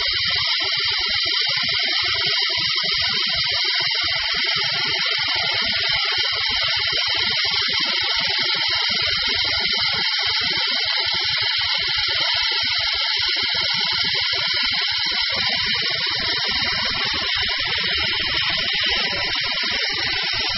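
OMAX waterjet cutting head piercing a metal plate: a steady high hiss of the high-pressure jet boring into the metal, not yet through it.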